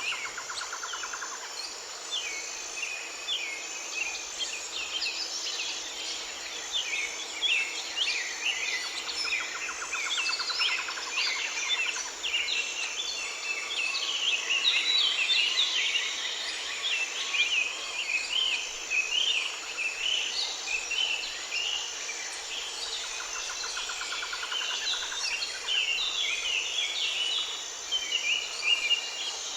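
Woodland ambience of many small birds chirping and singing over one another, with a steady high insect drone and an evenly repeating high pulse. Bouts of fast trilling come and go, at the start, near a third of the way in and again near the end.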